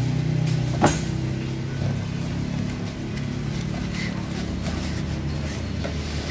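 Light knocks and rustles of a cardboard box and its foam packing being handled, with one sharper knock about a second in, over a steady low rumble.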